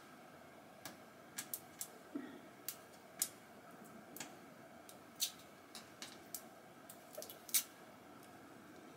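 Irregular sharp clicks and small taps as the packaging of a new mascara is handled and worked at to get it open.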